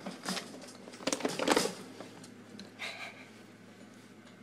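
Scattered clicks, taps and rustling as a plastic-and-wire pet carrier is handled against a wire rat cage, with a louder cluster of scraping noise about a second in.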